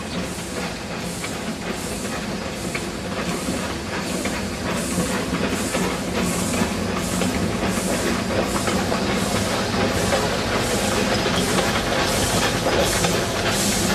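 Narrow-gauge steam tank locomotives working a train past: a steady beat of exhaust chuffs about twice a second over a low running hum, growing louder toward the end.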